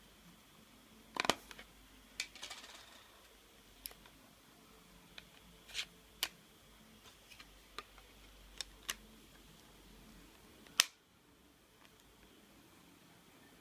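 Sharp plastic clicks and snaps from a Samsung phone's back cover being prised off, its battery being handled, and the cover pressed back on. There are about a dozen separate clicks, and the loudest snap comes near the end.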